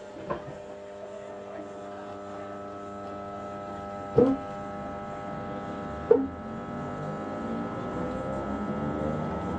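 Electric train pulling away from a station: a steady electric hum from the motors, with a rising whine building from about seven seconds in as it gathers speed. Three short knocks, the loudest about four and six seconds in.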